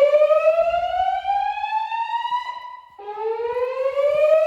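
Gentex fire alarm speakers on a voice evacuation system sounding the whoop evacuation tone, the tone that alternates with the recorded evacuation message. A loud tone climbs steadily in pitch for about four seconds, breaks off about three seconds in, and starts again from low.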